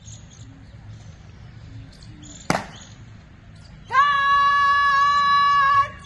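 A woman shouting a long, drawn-out drill word of command, held on one steady high note for about two seconds in the second half. About halfway in, before the command, there is a single sharp knock.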